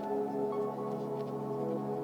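Ambient background music of long held tones, like a singing bowl or synth pad.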